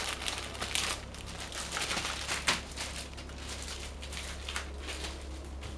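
Plastic sleeves and packaging crinkling as they are handled, with irregular crackles, busiest in the first few seconds and one sharper crackle about two and a half seconds in, then quieter rustling.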